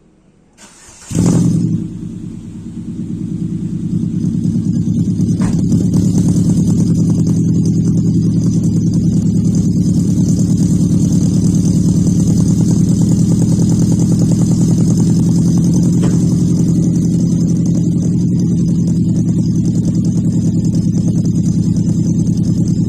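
Ford Fiesta engine with unequal-length headers and a 2.5-inch open pipe, no muffler, cold-starting: it catches about a second in with a brief loud flare, dips, then builds over a few seconds into a steady, loud idle.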